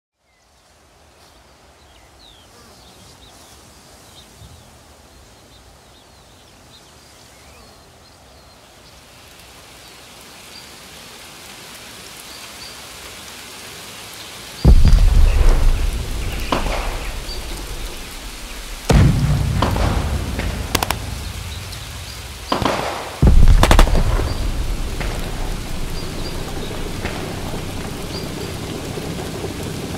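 Rain ambience that fades in and slowly swells, then several sudden deep booms in the second half, each rolling away slowly, with the rain continuing behind: a wartime storm ambience of rain and thunder.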